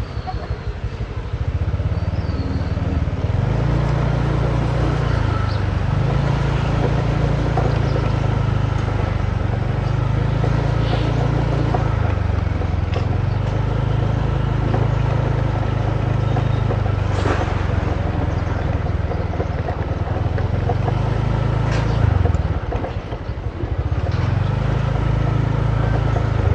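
Small motor vehicle engine, likely a motorbike, running at changing speed with its pitch stepping up and down. It eases off for about a second near the end, then picks up again.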